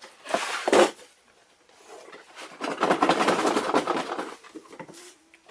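Cardboard toy packaging being handled and opened: a short scrape just under a second in, then a longer stretch of rubbing and scraping in the middle.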